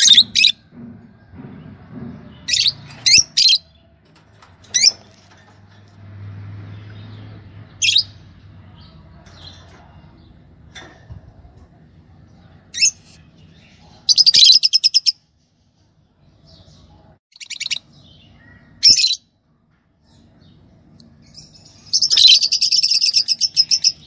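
Lovebirds calling: sharp, high single chirps scattered through, with two longer rapid chattering trills, one about fourteen seconds in and one near the end.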